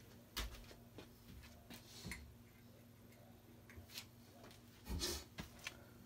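Quiet room tone with a faint steady hum, a few scattered sharp clicks, and a brief louder rustle about five seconds in.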